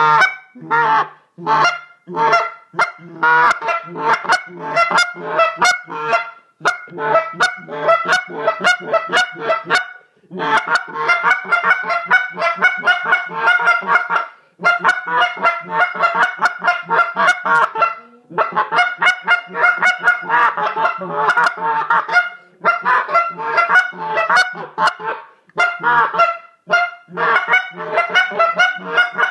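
Goose call being blown in fast runs of honks and clucks, several notes a second, with short breaks every few seconds.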